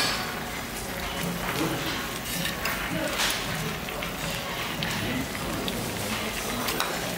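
Budae-jjigae (spicy sausage stew) bubbling steadily in its pot on a tabletop burner, with a ladle and utensils clicking and scraping against the pot and bowl as it is served out.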